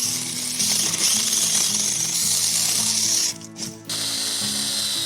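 Small cordless electric chainsaw running and cutting wood, a dense high-pitched rasp that stops for about half a second midway and then starts again. Background music plays underneath.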